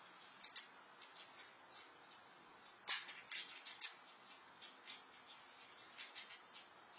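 Faint, irregular clicking and crunching of a squirrel chewing food at a feeding dish, with one sharper click about three seconds in.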